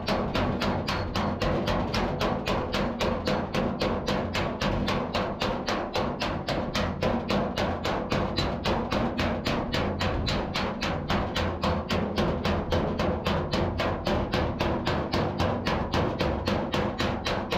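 Hand hammer beating out dents in a truck cab's sheet-metal panel: quick, steady blows, about four a second, with the panel ringing between them.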